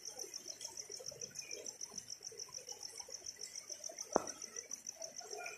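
An insect chirping in a fast, steady pulse, over the faint rush of a rain-swollen river. One sharp click about four seconds in.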